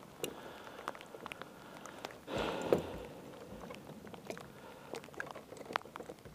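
Scattered light clicks and clinks of a steel coil-spring trap and its chain being handled on a wooden float, with a louder rustling scrape a little over two seconds in.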